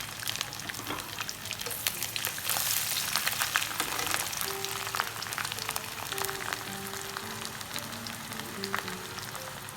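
Ginger, garlic and green chillies frying in hot coconut and sesame oil: a steady sizzle with many small crackling pops. Soft background music with a simple melody comes in about four seconds in.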